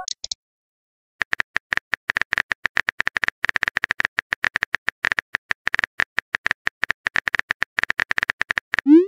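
Keyboard typing sound effect of a texting-story app: a rapid run of short tonal clicks, several a second, one per letter typed, starting about a second in. Near the end comes a short rising swoop, the app's message-send sound.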